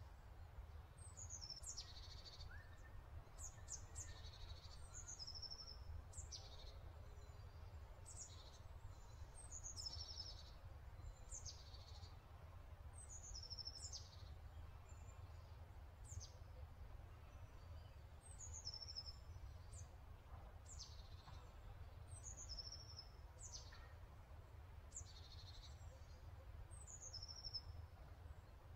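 A small bird singing faintly, repeating a short, high phrase of falling chirps about every two seconds, over a low steady hum.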